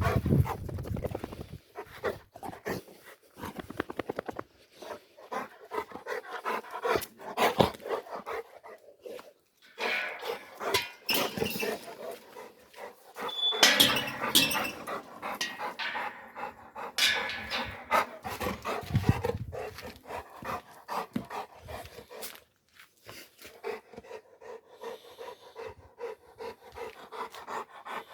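Cats making irregular breathy animal sounds with scattered rustles and clicks.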